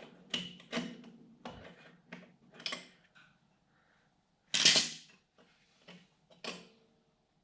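A string of sharp clicks and clanks from hand tools and parts being handled at a truck's rear wheel hub, with one louder clatter about halfway through.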